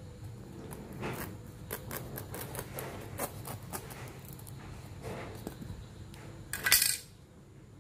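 A bawor durian's thick, spiny husk being pried open along its seam with a knife blade: a run of irregular cracks and clicks as the rind splits, then a louder rasp about six and a half seconds in.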